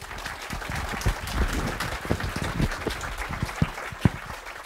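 Lecture-hall audience applauding, many hands clapping at once, strongest in the first couple of seconds and thinning out near the end.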